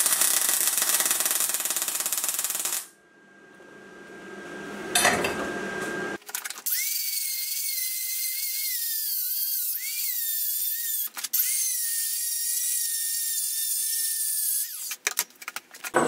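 Electric arc welding on a steel tube joint: a dense steady hiss that stops about three seconds in. From about six seconds a handheld rotary tool with a grinding stone grinds the weld, its high whine wavering in pitch as it loads and unloads, and it stops shortly before the end with a few clicks.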